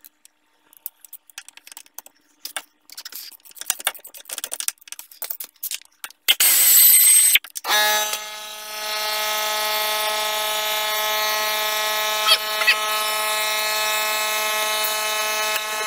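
Hand ratchet clicking on a long extension as a hub-to-knuckle Allen bolt is backed out. About six seconds in comes a loud, short burst of noise, and then a steady buzzing machine hum sets in.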